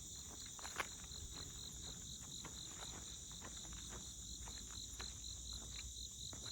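Insect chorus of crickets or similar insects: a steady high drone with a pulsing trill repeating about four times a second. Scattered light clicks, one sharper just under a second in.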